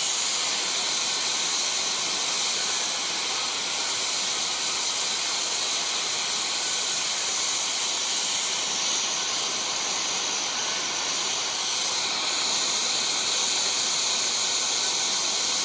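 Oxygen-fed gas torch flame hissing steadily, heating a steel rod so it can be bent.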